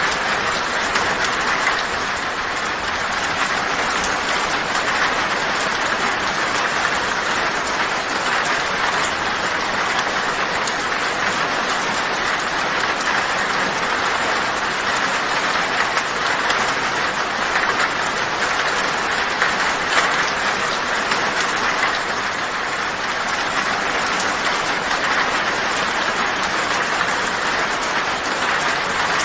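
Heavy rain falling on a tin roof: a dense, steady patter of drops on the metal.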